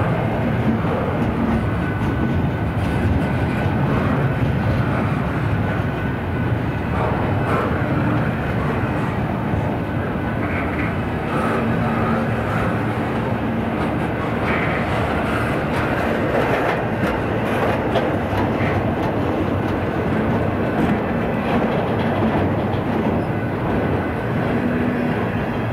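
A train rolling past, with continuous steady noise of wheels on the rails.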